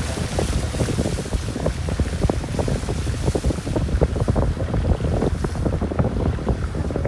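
Wind buffeting the microphone, a heavy unsteady rumble, with a jumble of irregular small knocks.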